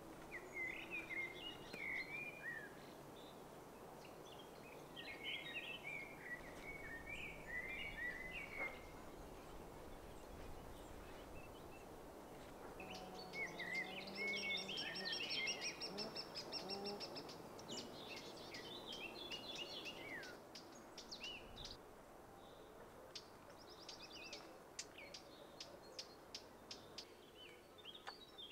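Songbirds singing in short, repeated chirping phrases over a steady low outdoor background, with a higher trill and a lower warbling call about halfway through, then a run of quick ticks.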